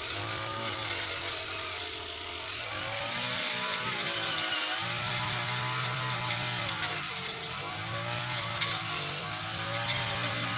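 Grass cutter (brush cutter) engine running at high speed, its pitch wavering slightly as it cuts through tall grass.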